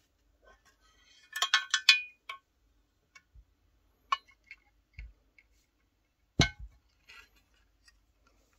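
Clinks, clicks and knocks of a ProCo Rat pedal's metal enclosure and circuit-board plate being handled by hand: a quick run of clinks about a second and a half in, scattered single clicks, and a sharper knock about six and a half seconds in.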